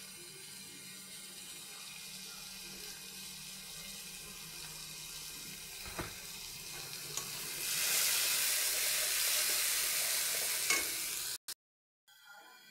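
Spice paste frying in hot oil in a wok, sizzling steadily and stirred with a spatula, with a sharp knock of the spatula on the pan about halfway through. A little later liquid goes into the hot oil and the sizzle turns much louder for about four seconds, then the sound cuts off abruptly.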